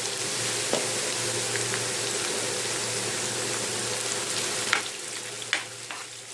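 Chopped garlic, ginger and green chillies sizzling in hot oil in a pan, with a few sharp clicks of the spoon against the pan.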